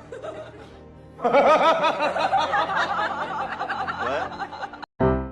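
Laughter: a long run of quick, bouncing chuckles that starts about a second in and stops abruptly near the end, over background music.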